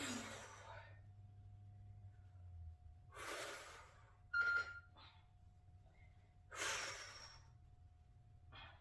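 A woman breathing hard through a set of kettlebell front raises: three heavy exhales about three seconds apart, and a fainter one near the end. A short, sharp sound about four and a half seconds in is the loudest moment, over a faint steady hum.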